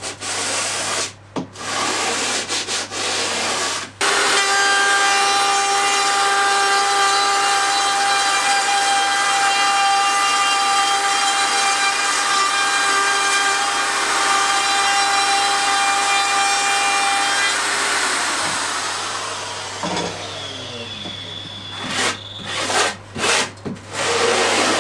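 Sanding block rubbing in strokes along the edge of an OSB panel. About four seconds in, an electric router starts and runs with a steady high whine while cutting into wood, then winds down after about fourteen seconds. A few light knocks from handling the boards follow.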